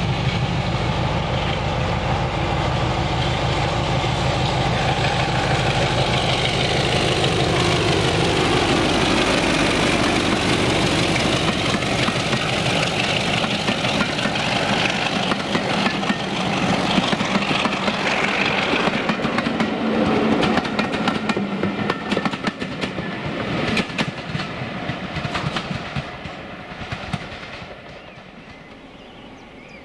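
BR Class 33 diesel locomotive D6515, its Sulzer eight-cylinder engine under power as it approaches and passes hauling coaches; the engine note falls as it goes by. The coaches then clatter rhythmically over the rail joints and fade away near the end.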